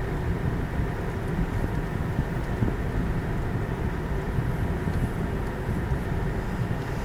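A car driving through a road tunnel: steady low rumble of road and engine noise.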